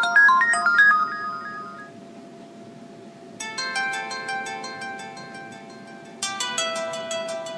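Ringtones played through the Alcatel OT-708 phone's loudspeaker. A fast melody fades out in the first two seconds, then after a short pause a new tune of ringing notes begins, with a louder phrase coming in about six seconds in.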